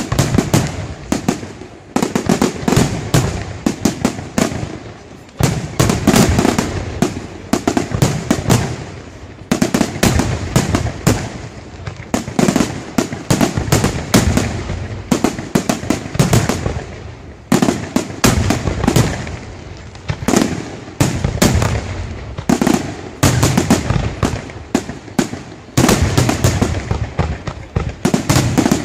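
Aerial fireworks display in a dense barrage: many shell bursts bang in quick succession, crackling between them, surging in waves every two to four seconds.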